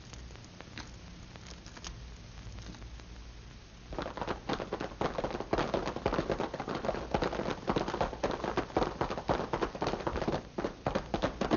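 Radio sound-effect hoofbeats of horses galloping off. After a few scattered knocks, the rapid, irregular clopping starts about four seconds in and keeps going.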